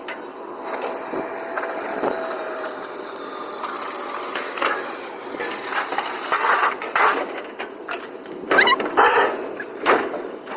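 Scrap being thrown off a trailer onto the ground: irregular knocks, clanks and clatter of metal and other junk, louder and more frequent in the second half.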